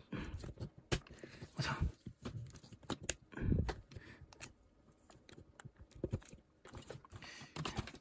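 Irregular small clicks, taps and scrapes of hands and tools working at the plastic casing of a DJI Pocket 2 gimbal camera, trying to pry it open for a battery change. There are a few sharp clicks among softer scraping and handling noise.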